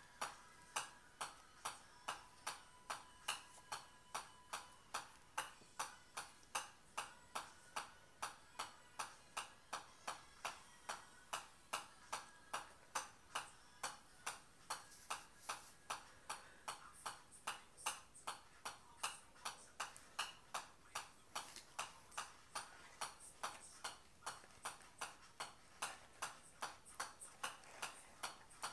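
Golf ball bouncing repeatedly on the face of a pitching wedge, a sharp click at each hit in an even rhythm of about two and a half hits a second.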